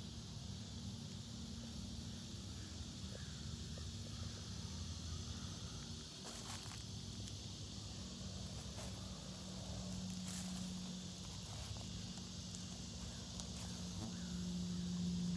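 Outdoor ambience: a steady high hiss and a low hum that grows a little louder near the end, with a few faint clicks.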